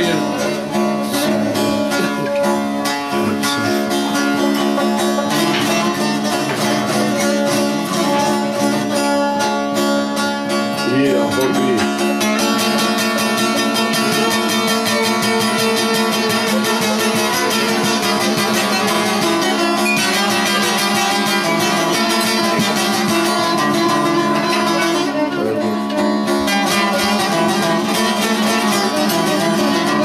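Bağlama (long-necked Turkish saz) played with fast, continuous plucking in a folk-song melody.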